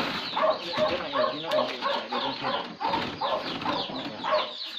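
An animal crying out in rapid short calls, about three a second, without a break.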